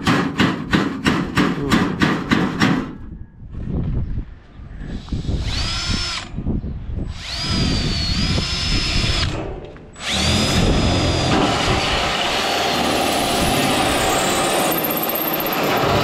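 A handheld power drill running in three bursts, spinning up to a high steady whine each time, the last and longest from about ten seconds in, working on a galvanized steel sheet-metal patch. Before it, a run of sharp regular knocks, about three a second, for the first three seconds.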